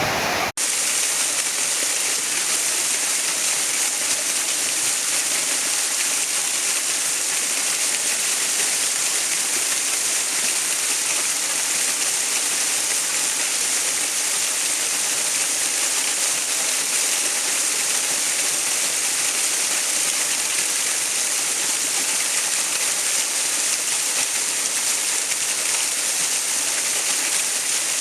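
Flowing water rushing in a steady, dense hiss, strongest in the highs. It cuts out for an instant about half a second in, then runs on unchanged.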